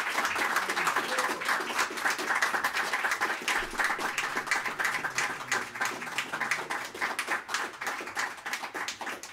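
A small audience applauding, a dense patter of many separate hand claps that thins out a little near the end.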